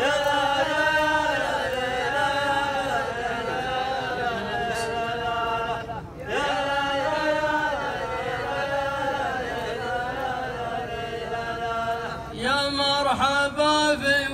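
A row of men chanting a rajaz verse together in long, drawn-out phrases. There is a brief break about six seconds in, and a more sharply accented phrase starts near the end.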